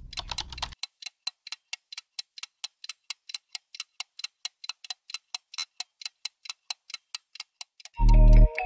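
Clock-like ticking sound effect, quick even ticks at about five a second. Loud music with a heavy bass comes in near the end.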